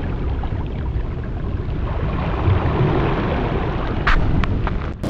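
Wind buffeting the microphone: a steady low rumble and rush, with a few short, sharp higher sounds about four seconds in.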